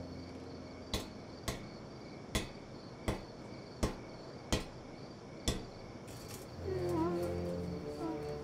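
A brass horn knocking on paving stones as it hops along: seven sharp metallic knocks, roughly one every half second to a second, over a faint chirring of night insects. Near the end, low wavering tones with bending pitch come in.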